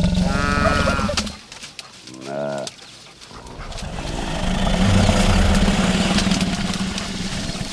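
Animal calls in succession: a pitched call at the start, a short call about two seconds in, then a longer, rougher low sound from about three and a half seconds on.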